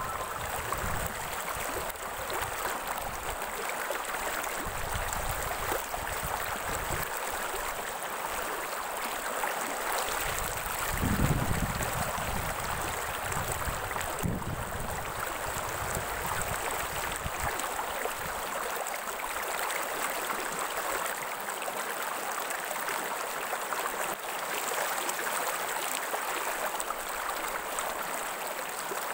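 Running water of a stream, a steady rushing and burbling with no pauses, and a brief low rumble about a third of the way in.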